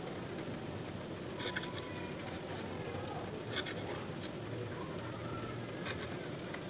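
A few light clicks and rustles from cutting and handling Epidendrum orchid stems by hand, scattered over a steady background hiss.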